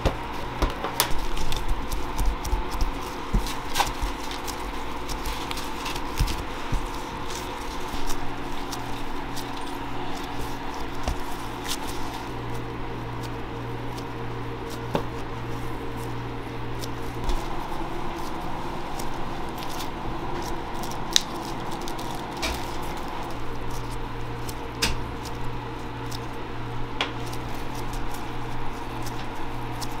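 Bagel dough being pressed, folded and rolled by gloved hands on a stainless steel table, with soft squishes and scattered sharp taps of dough and scraper on the steel, busiest in the first few seconds, over a steady hum of kitchen machinery.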